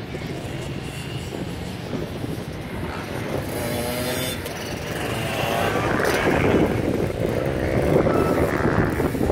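Engines of kids' mini motocross bikes running on a dirt track, with a rider's engine growing louder over the second half as the bike comes closer.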